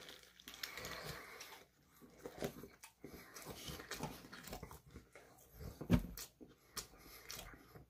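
Person biting into and chewing a shawarma wrap, soft mouth and chewing noises, with a dull bump about six seconds in.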